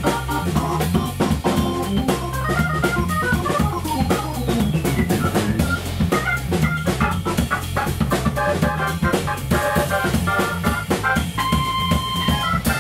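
Hammond organ soloing in fast funk-jazz runs over a low bass line, with a drum kit and cymbals keeping the groove. About four seconds in, a run sweeps up and back down, and near the end the organ holds one high note.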